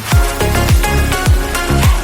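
Upbeat electronic background music with a steady kick-drum beat, about one and a half beats a second.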